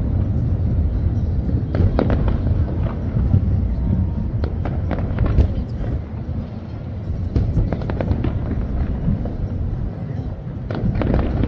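Fireworks bursting overhead: a string of sharp bangs and crackles at uneven intervals over a continuous low rumble.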